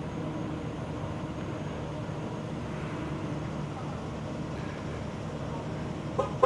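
Steady vehicle rumble with a low hum, and a brief pitched blip just before the end.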